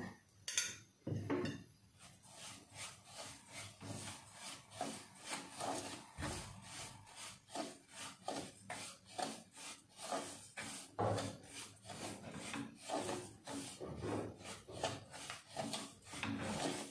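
A spatula scraping and stirring dry semolina against the bottom and sides of an aluminium pressure cooker, in a run of quick repeated strokes. The semolina is being roasted in ghee.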